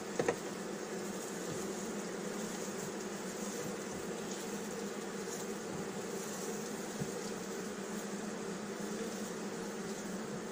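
Honeybee colony buzzing steadily over the open frames of a hive, an even, continuous hum. The colony is defensive and stinging while the hive stands open.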